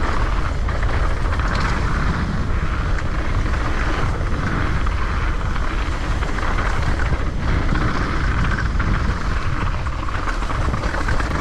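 Specialized Demo downhill mountain bike being ridden down a trail: steady noise of the ride, with a rattle from brake pads loose in the calipers, a sign the pads are not yet bedded in.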